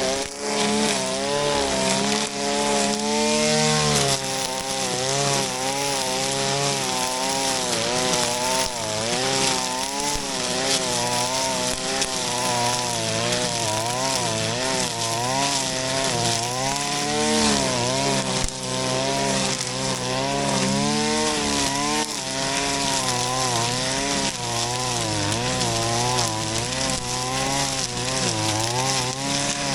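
Shindaiwa RK3026-PT brush cutter's 25.4 cc two-stroke engine running at high speed while cutting grass, its pitch dipping and recovering every second or so, over a steady hiss.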